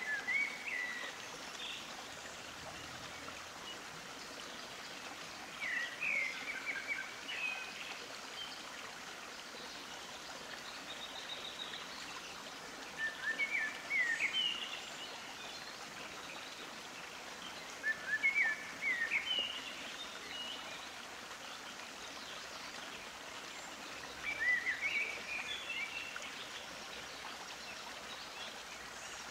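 Songbird chirping in short phrases of quick rising notes, one phrase about every five to six seconds, over a steady rush like a running stream.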